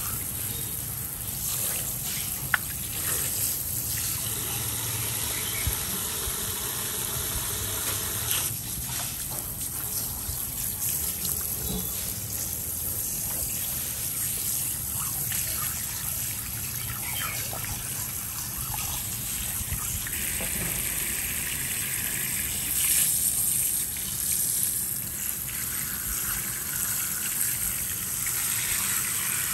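Running water spraying and splashing steadily onto queen conch meat and a plastic cutting board as the meat is rinsed by hand, with a sharp knock about two and a half seconds in.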